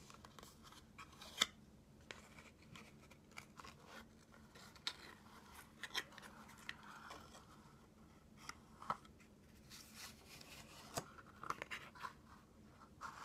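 Normal-size playing cards being handled: scattered sharp clicks and taps, with soft sliding and rubbing of card between them.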